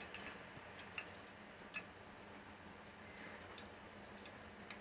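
Refined oil being poured into a hot frying pan: a faint low hiss with a few sparse small ticks and crackles.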